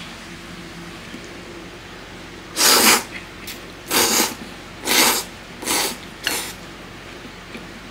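A person slurping thick ramen noodles: five noisy slurps about a second apart, starting about two and a half seconds in, the first the longest and the last ones shorter.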